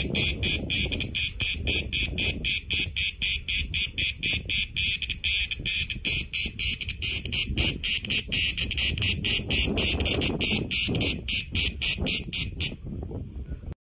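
A cicada singing close up: a loud, high buzz pulsing rapidly at about five pulses a second. Near the end it stops abruptly, leaving only a faint steady buzz.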